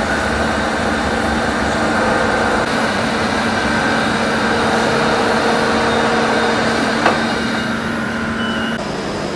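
Steady hum and whine of metalworking machines in a factory hall, with several steady tones held through it and a single sharp click about seven seconds in; the tones drop out shortly before the end.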